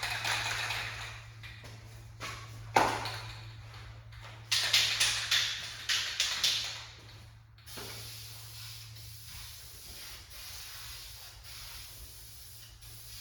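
Primer being sprayed onto sheet metal panels: hissing in short bursts and pulses, then one longer steady pass, over a steady low hum.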